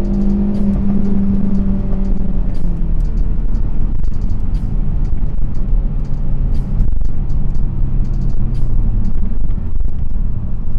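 Ford Focus RS's 2.3-litre turbocharged four-cylinder engine under a full-throttle third-gear pull, heard inside the cabin. The engine note holds high for about two and a half seconds, then drops to a lower, steady note for the rest. Faint sharp clicks are scattered throughout.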